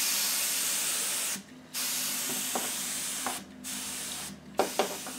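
Canned compressed air duster spraying through its thin nozzle straw in three hissing bursts, the second ending about three seconds in and the last a shorter one, blowing wet alcohol ink out into thin streaks.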